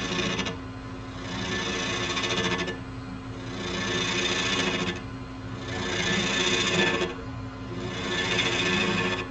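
Wood lathe running with a steady motor hum while a hand-held turning tool cuts a spinning natural-edge bowl, the cutting noise rising and dropping back about every two seconds as the tool makes four passes.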